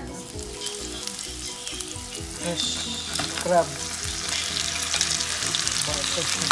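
Hot oil sizzling in a wok as raw blue swimmer crabs are tipped in on top of sautéing onion and ginger. The sizzle grows gradually louder.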